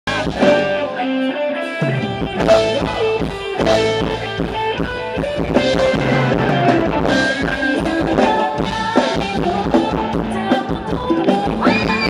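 Thai ramwong dance music from a live band, with a steady drum beat under pitched instruments.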